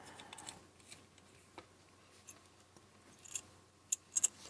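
Southord NPS-2000 pocket pen lock pick set being handled and screwed back together: scattered light metallic clicks and rattles, with a quick cluster of sharper clicks near the end.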